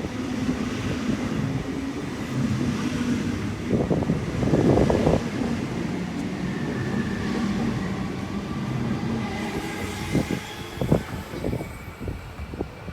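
Sydney Trains Waratah (A set) electric train passing through the station, a steady rumble with a faint whine, swelling about four seconds in. A few sharp clicks of wheels over rail joints come near the end.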